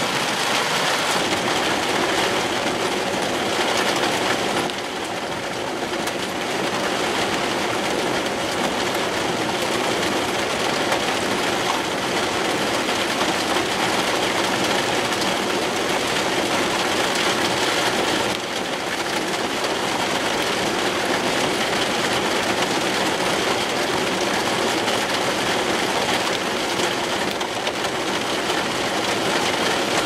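Heavy thunderstorm rain and wind making a loud, steady rushing noise, dipping briefly twice.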